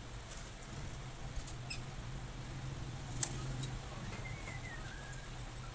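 Small plastic clicks of hands handling an inkjet printer's printhead and carriage, with one sharp click about three seconds in, over a low steady hum. A faint chirp comes near the end.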